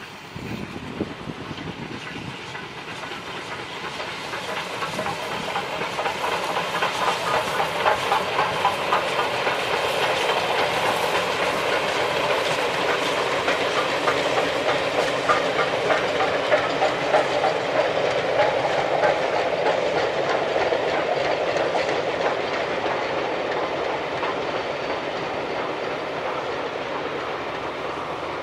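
Coaches of a steam-hauled passenger train rolling past, wheels clattering over the rail joints in a quick run of clicks over a steady rumble. It grows louder over the first several seconds as the coaches draw level, then eases slightly near the end.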